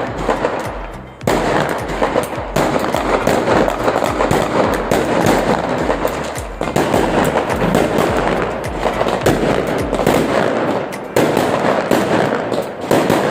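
Fireworks and firecrackers crackling in a dense, continuous rapid-fire barrage, with a brief lull about a second in.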